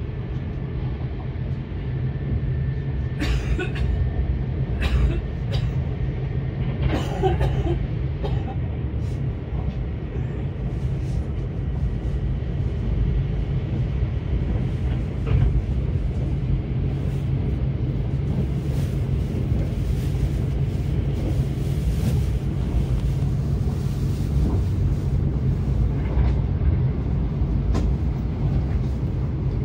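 Cabin noise of a Kintetsu 21000 series Urban Liner limited express train running at speed: a steady low rumble, with a few sharp clicks a few seconds in.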